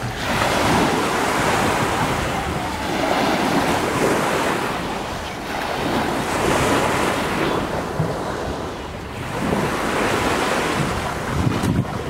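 Wind buffeting the microphone over the wash of small waves on a sandy shore, a steady rushing that swells and eases every few seconds.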